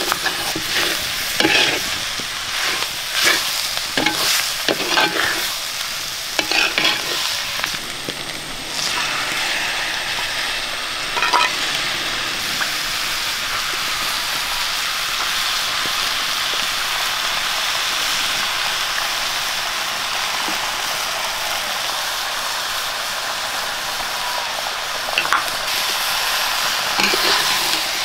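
Curry ingredients frying in oil in a pan, with a spoon scraping and clicking against the pan as they are stirred for the first several seconds. After that comes a steady sizzle with only an occasional scrape.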